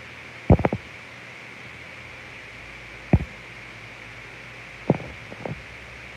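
Handling bumps on a phone's microphone as it is held and moved: a quick cluster of three knocks about half a second in, a single one near three seconds, and two more near five seconds, over a steady hiss.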